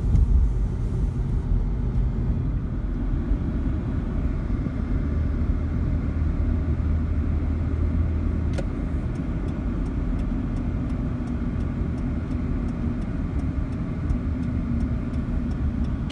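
Car engine and road noise heard from inside the cabin while driving: a steady low rumble. A single click comes about eight and a half seconds in, and a faint regular ticking runs through the second half.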